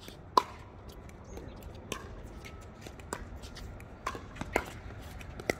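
Pickleball rally: paddles striking a plastic pickleball back and forth, about six sharp hits roughly one a second, the loudest less than half a second in.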